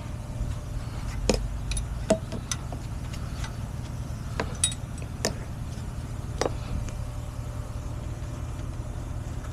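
A truck engine idling with a steady low rumble, while metal tow gear clinks and clicks sharply about seven times as it is handled during the hook-up.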